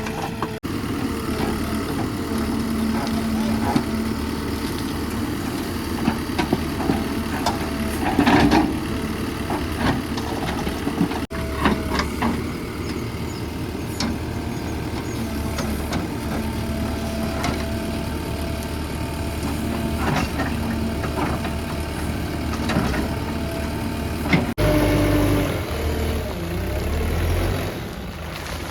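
Diesel engines of a backhoe loader and a tractor running under work, with scattered sharp knocks and clanks. The sound changes abruptly twice, as if cut.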